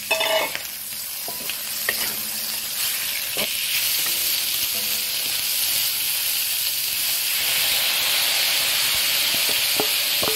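Vegetables sizzling in hot oil in a wok while a wooden spatula stirs them. The sizzle grows louder about three to four seconds in. A few short knocks of the spatula against the wok come near the start, in the middle and near the end.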